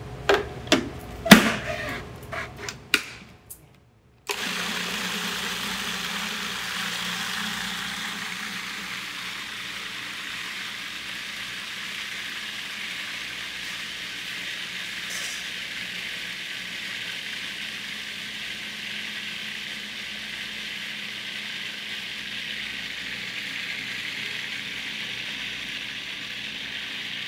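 A few sharp clicks and knocks in the first three seconds, then a food processor motor starts about four seconds in and runs steadily with a constant hum, chopping smoked eggplant.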